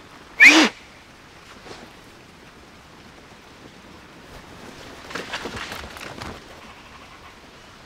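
A single short, loud shout, then, about five seconds in, a second or so of rustling and crunching as several soldiers drop to the ground onto the dry fallen leaves of a forest path.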